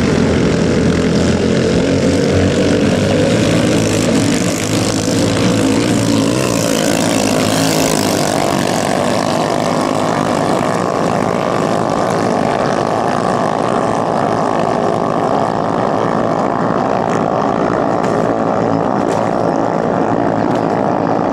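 Racing ketinting canoes' small 6–7 hp outboard engines running flat out in a steady, loud buzz. A brighter hiss of spray comes up about seven to eight seconds in as one boat passes close.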